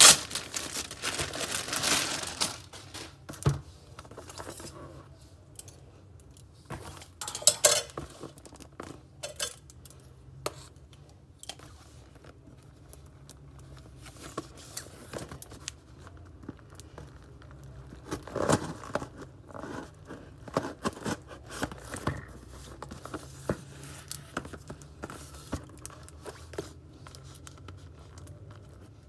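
Packaging being opened and handled by hand: crinkling, tearing and light clicking in irregular bursts, densest in the first two seconds.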